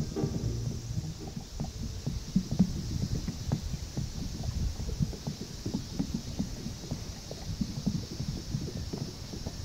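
Small waves lapping and slapping against the side of a small boat: irregular soft low knocks, several a second, with a faint steady hiss above.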